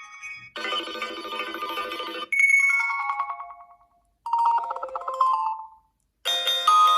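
HTC phone ringtones played one after another: a dense chiming passage, a falling melody that fades out, a short melodic phrase, then after a brief silence a new ringtone with held notes begins near the end.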